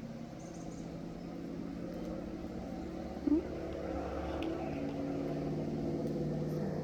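A motor engine's steady hum, growing gradually louder as it draws near, with a short rising squeak about three seconds in.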